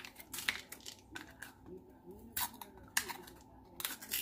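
Plastic supplement bottle of beef liver capsules being opened and handled: scattered sharp clicks and crinkling from the cap and seal.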